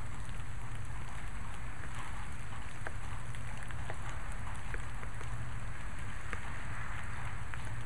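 Steady rain falling, with single drops ticking sharply here and there.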